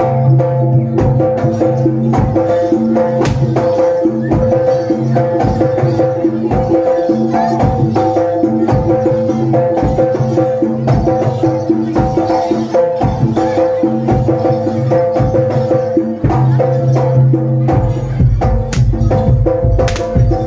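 Live Javanese jaranan ensemble music: steady, rapid percussion strikes over sustained held tones, with a low tone that drops out briefly and returns near the end.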